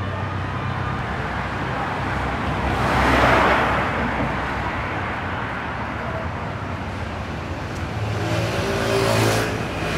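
Road traffic: a car passes by about three seconds in. A second vehicle with a humming engine passes near the end, over a steady low rumble of traffic.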